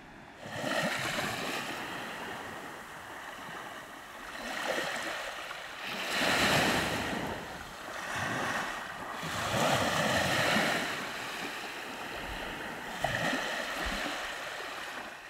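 Small sea waves washing up onto a sandy beach, the wash swelling and fading every few seconds.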